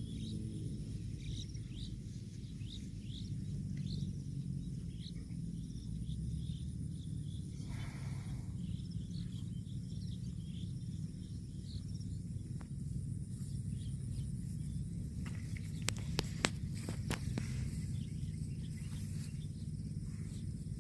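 Outdoor rural ambience: a steady low rumble with many short, high chirps throughout, and a cluster of sharp clicks about sixteen seconds in.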